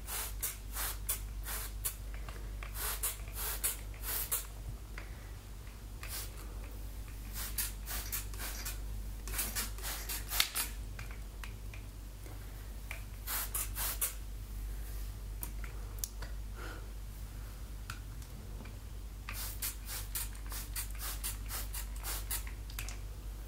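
Plastic trigger spray bottle spritzing water onto hair: quick runs of short hissing sprays, several pumps at a time, with pauses of a few seconds between runs.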